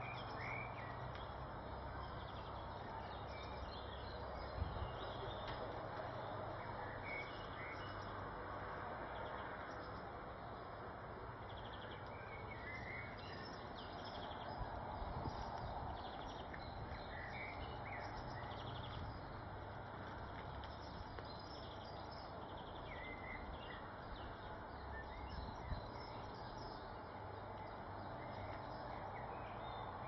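Steady outdoor background noise with short bird chirps scattered through it, and two brief sharp taps, one about four and a half seconds in and one near the end.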